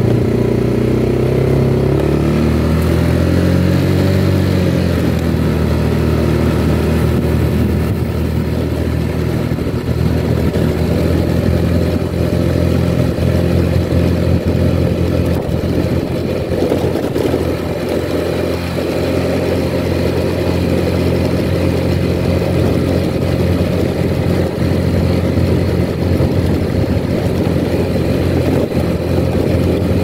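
2011 Yamaha Xeon scooter's single-cylinder four-stroke engine running while ridden, heard from the rider's seat. Its pitch climbs over the first few seconds as the scooter speeds up, then holds fairly steady at cruising speed.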